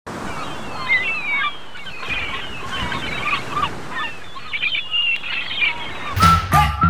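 Birds calling in many short chirps and squeals over a steady wash of surf. About six seconds in, music comes in with a whistled tune over bass notes.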